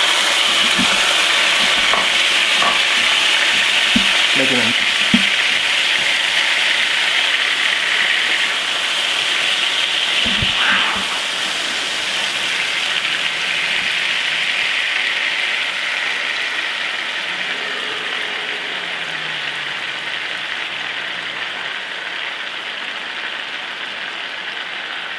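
Raw ground beef sizzling in a hot, oiled cast-iron skillet. The sizzle starts suddenly as the meat is tipped in and slowly eases as it cooks. A few knocks and scrapes of a wooden spatula come as the meat is broken up.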